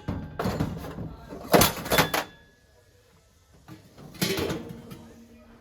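Knocks and clatter of objects being handled, with two sharp strikes about a second and a half in that leave a brief metallic ring.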